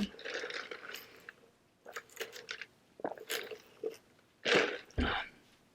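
A person chewing a cheeseburger close to the microphone, in short irregular spells with brief pauses between them.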